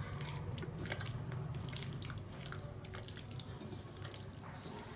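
Wet squelching and small sticky clicks of a hand squeezing and turning raw chicken pieces in a thick yogurt marinade in a bowl, irregular throughout, over a low steady hum.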